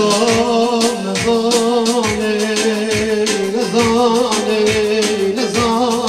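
A man singing into a handheld microphone, holding long wavering notes over backing music with a steady percussion beat.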